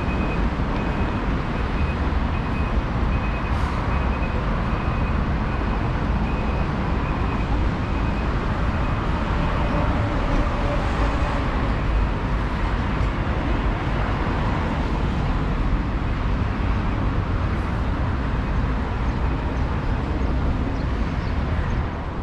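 City street traffic at a busy intersection: a steady rumble of passing cars, trucks and buses. Through the first half a short high beep repeats at an even pace, then stops about ten seconds in.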